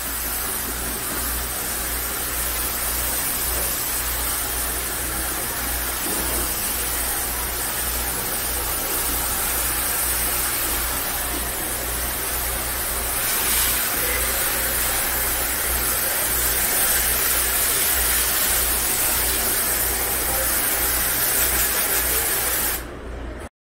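Commercial kitchen pre-rinse spray valve blasting water onto a plastic cutting board in a stainless steel sink: a steady hiss of spray with a low hum underneath. It cuts off suddenly near the end.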